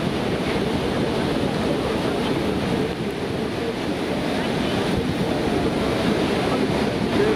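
Steady rushing noise of a large waterfall and churning river water, with wind buffeting the microphone on a moving boat.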